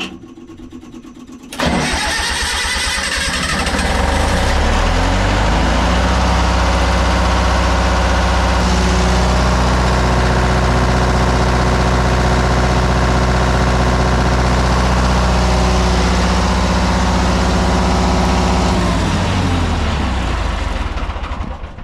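MEP-003A generator's two-cylinder Onan diesel engine cranked by the starter for about two seconds, catching and running steadily, then shut down near the end and winding to a stop. It is the first run after an oil change and spin-on filter conversion, started to build oil pressure and check for leaks.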